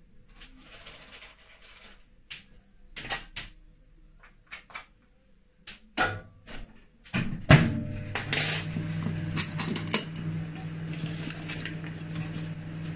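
Kitchen dishes and utensils clinking and clattering on the counter. About seven seconds in there is a loud knock, and then a microwave oven runs with a steady hum, melting the chocolate.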